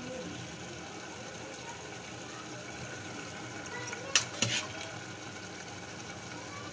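A steel ladle scooping boiled chickpeas and their water out of a steel pot, with two sharp metal clinks close together about four seconds in, over a steady low hiss.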